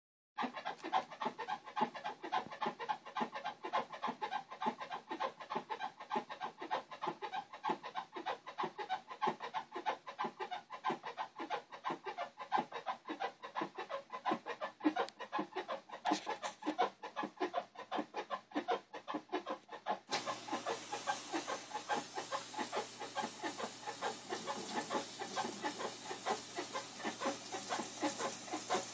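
Whirlpool Cabrio 5500 washing machine making a rapid, repeated 'squeaky bed' squeaking, a fault whose cause the owner does not know. About 20 s in, a steady hiss and a low hum rise beneath the squeaks.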